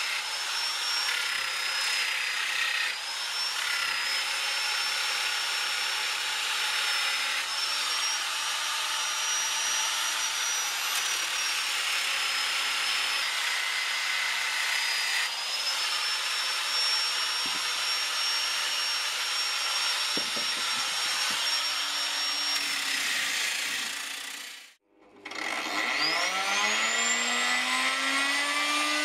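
Angle grinder with a sanding disc running steadily against a small wooden barrel, a high whine over a rough sanding noise. About 25 seconds in it stops abruptly, and a plunge router's motor starts, its whine rising as it spins up.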